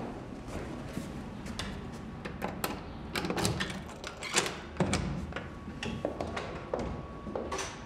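Footsteps and the click and knock of a door handle and a door being opened and walked through: a string of sharp clicks and knocks, busiest about three to five seconds in.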